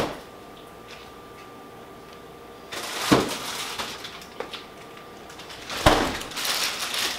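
Handling noises: a click at the start, then a knock about three seconds in and a sharper knock near six seconds, each followed by rustling, over a faint steady hum.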